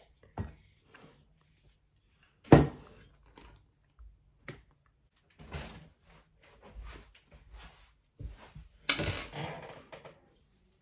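Objects being handled and set down: scattered knocks and clatters, the sharpest about two and a half seconds in, and a longer rustling clatter near the end.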